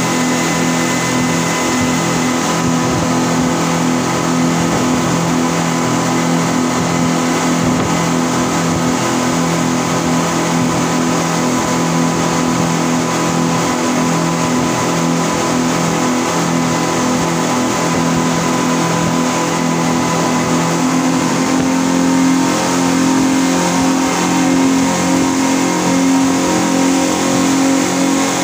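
Twin outboard motors of a speedboat running at speed, a steady drone over the rush of water from the wake. About three-quarters of the way in the engine pitch rises slightly and it gets a little louder.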